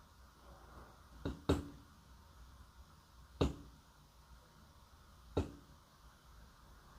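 A few sharp, small taps of hard objects, a quick pair about a second and a half in and then one every two seconds or so, over a faint steady hiss.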